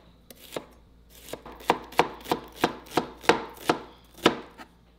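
Chef's knife chopping a shallot on a cutting board: a few light cuts, then a steady run of about eight sharp knocks on the board, roughly three a second, which stops a little after four seconds in.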